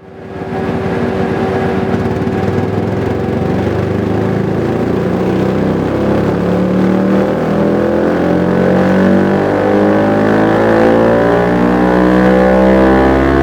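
Yamaha MT-125's single-cylinder four-stroke engine through a Dominator full exhaust system, running under load with its revs climbing slowly and steadily, growing a little louder.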